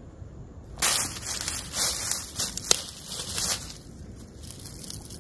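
Dry fallen leaves crunching and rustling under boots as a person shifts and crouches on the forest floor, with one sharp click a little past the middle.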